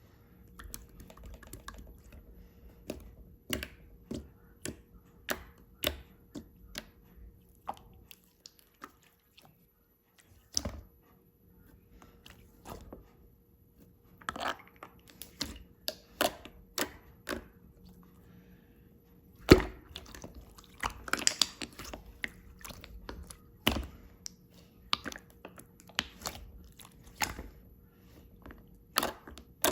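Irregular sharp clicks, taps and knocks at close range, coming in clusters of a few a second with short gaps; a louder knock comes about twenty seconds in.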